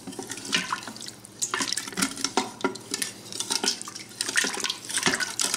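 Wooden spatula stirring beef broth in a stainless steel Instant Pot inner pot, sloshing the liquid and scraping the bottom in irregular strokes to deglaze the browned bits of beef.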